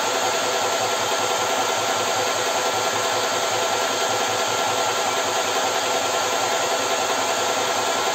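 Portable 12-volt electric PCP air compressor running steadily while filling an air rifle through its hose: a loud, even motor drone with a fast regular pulse from the pump strokes and a thin steady whine.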